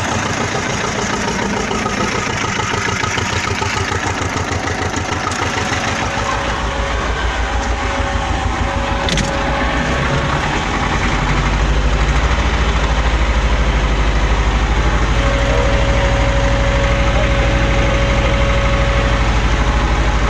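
Petrol-fired heater from a ZAZ car, fitted to a T-25 tractor, running loudly with a steady whine, as it is being lit. A low pulsing builds and the sound jumps louder about eleven seconds in, as the burner catches.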